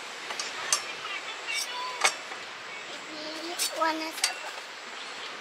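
Scattered sharp clinks and knocks, about six in all, with voices in the background.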